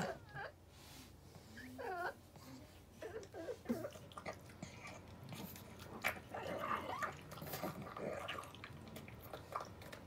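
Pug making a few short squeaky sounds that rise and fall in pitch in the first few seconds, then eating from a bowl with face in the food: irregular snuffling, smacking and chewing noises from about four seconds in.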